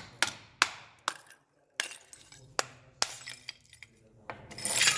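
Sharp blows chipping a hard mold away from a bronze casting: about six separate cracking impacts with a clinking ring, then a louder crunching scrape near the end as mold material breaks away.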